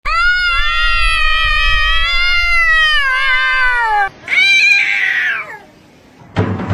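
Tabby cats in a standoff, one giving a long, wavering caterwaul for about four seconds that falls in pitch at the end, followed by a shorter, harsher yowl. This is the drawn-out threat yowl of cats squaring up to fight.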